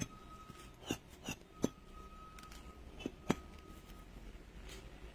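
Handling noise from craft pieces being picked up and set down on a cloth-covered table: about five light, sharp taps and clicks, two close together near the start and two more about three seconds in.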